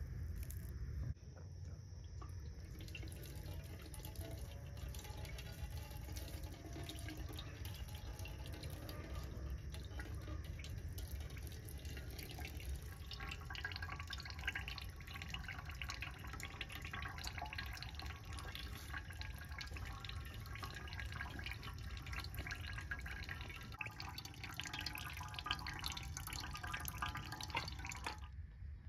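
Liquid splashing and dripping into a vessel, with the splashing growing busier about twelve seconds in.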